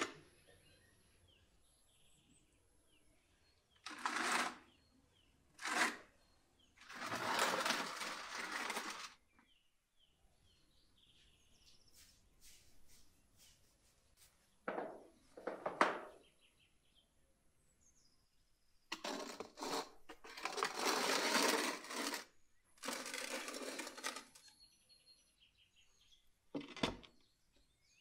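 Scraping and rustling as a wooden door is handled and pulled away from a brick wood-fired oven's mouth: a series of noisy scrapes up to about two seconds long, then one sharp knock near the end.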